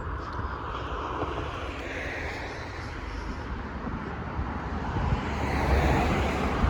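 Street traffic: a passing vehicle's engine and tyre noise, growing louder towards the end.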